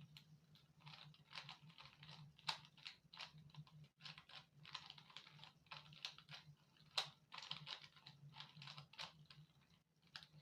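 Rubik's cube being turned quickly by hand: a faint, dense run of plastic clicks and clacks as the layers turn, with two sharper clacks.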